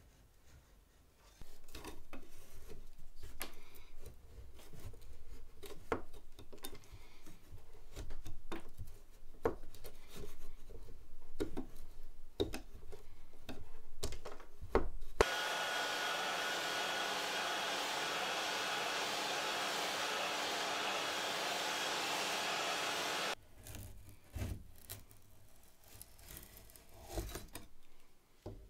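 Hand scraper rasping over an old wooden window sash in short, irregular strokes, taking off old paint and putty. About fifteen seconds in, a steady electric blower hiss with a faint hum starts suddenly, runs for about eight seconds and cuts off, and then the scraping strokes resume.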